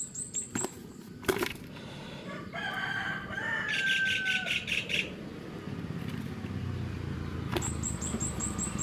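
A bird's wings flapping, with short bird calls and a rapid series of high ticks at the start and again near the end.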